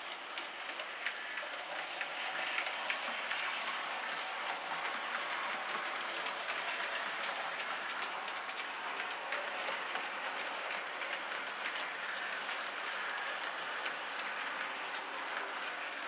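Model railway train running past: the OO gauge Class 20 locomotive's electric motor whirring and the wheels of it and its goods wagons clicking over the rail joints in an irregular patter.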